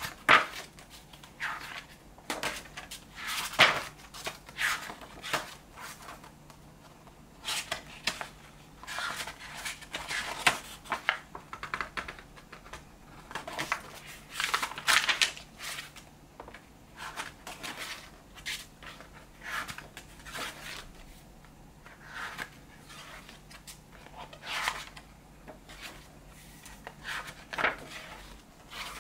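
Pages of a hardcover book being turned and handled: irregular paper rustles and flips every second or two, with a few sharper page snaps.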